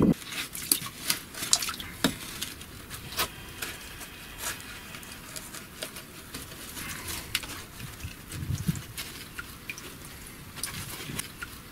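Gloved hands digging and scraping through wet, waterlogged mud and soil, with irregular wet squelches and many small crackles and clicks of grit and debris. A duller low squelch comes a little after eight seconds in.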